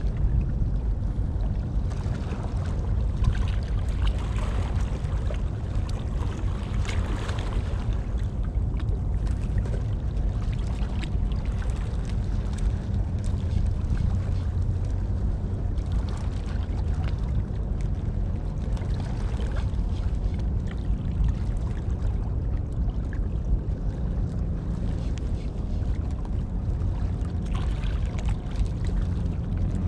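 Wind buffeting the microphone as a steady low rumble, with the harbour water faintly audible beneath it.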